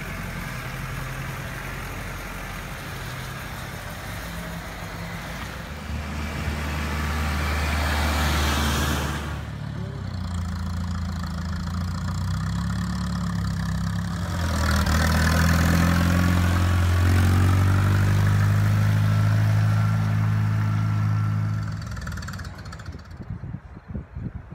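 Engines of the tractor and tow vehicles moving boat trailers, running at idle and low revs. The engine note changes abruptly about ten and fifteen seconds in, is loudest in the middle stretches, and drops away near the end.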